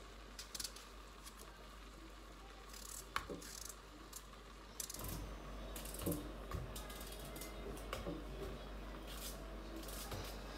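Raw pumpkin being cut by hand with a small knife: irregular crisp clicks and cracks as the blade splits the firm flesh, with chunks dropping into a steel pot of raw vegetables.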